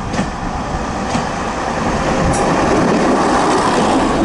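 AC Cars diesel railbus running past close by, with a few sharp clicks as its wheels cross rail joints. The noise grows louder and is loudest as the railbus goes by.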